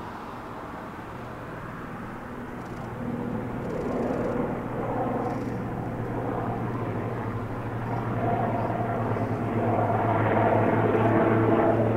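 Firefighting helicopter's engine and rotors, a steady hum that grows louder toward the end.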